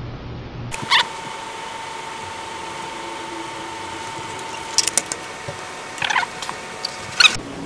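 Knife and metal server clicking against glass plates several times as a chocolate cake is cut and a slice lifted onto a plate, the sharpest click near the end, over a faint steady tone.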